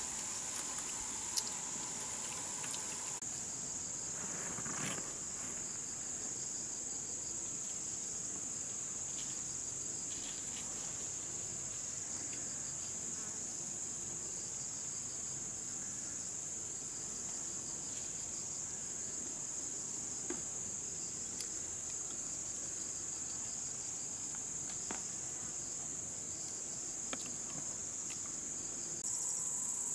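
Steady high-pitched chorus of insects, with a few faint clicks and knocks; it gets somewhat louder near the end.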